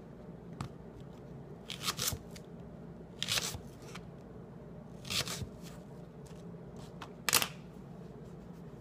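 Kitchen knife slicing through a crisp red apple on a plastic cutting board: a handful of short crunchy cuts a second or two apart, the one near the end the loudest.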